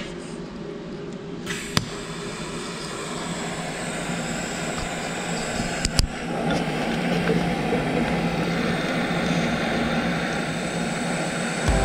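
TIG welding arc from an Eastwood TIG 200: a steady hiss and buzz, with a sharp click about two seconds in and another about six seconds in, after which the hiss is a little louder.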